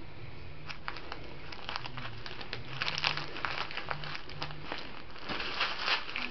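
A crinkly bag of valerian root rustling and crackling as a small cat bites, rubs and rolls on it. The rustling comes in irregular bursts, densest around three seconds in and again near the end.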